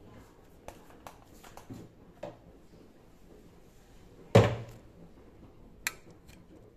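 Light plastic clicks and knocks from handling a flat chenille mop with a plastic frame and pole, then one loud, dull thump about four and a half seconds in and a sharp click about a second later.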